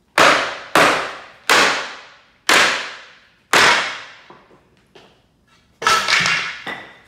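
A sledgehammer pounding a wooden pallet's runners five times in quick succession, hard wood-on-wood blows each ringing on briefly, driving the nails out so the bottom deck boards come loose. Near the end come several smaller knocks.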